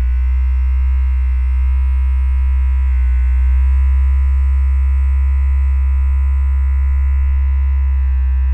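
Small handheld electric appliance buzzing steadily close to the ears: a strong low hum with many overtones that holds level throughout.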